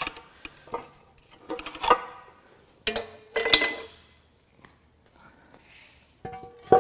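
Metal clanks and knocks from a pry bar and the aluminum lower section of a Ford 2.7L EcoBoost V6 block as it is pried off the block. Several of the hits ring briefly, and the longest ring comes near the end.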